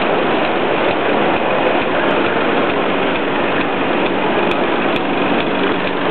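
Small live-steam model engines running: a steady hiss and whir with faint steady tones, without pause.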